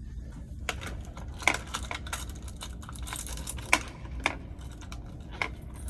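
A handful of sharp, irregular clicks and taps over a low steady rumble.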